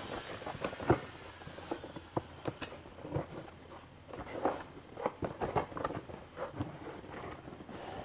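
Taped cardboard box being pried and torn open by hand: the flaps and tape scrape, tear and rustle in a run of small irregular scratches and taps.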